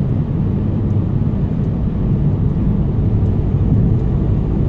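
Steady low rumble of a car driving at road speed, engine and tyre noise heard from inside the car.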